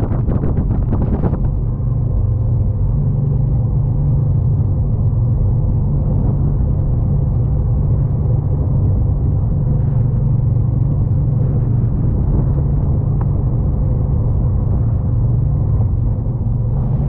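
Jet boat running at speed: a loud, steady low engine drone with the rush of air and water over it, and a brief burst of hiss in the first second.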